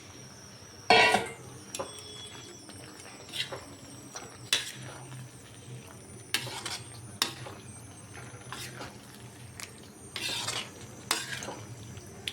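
A spoon stirring and scraping in a cooking pan, with irregular clinks and scrapes against the metal, the loudest about a second in and several more near the end.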